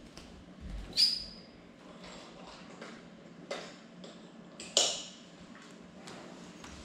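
A few sharp clicks and knocks, the loudest near five seconds in. The first, about a second in, carries a short high ringing tone. A faint steady low hum runs underneath.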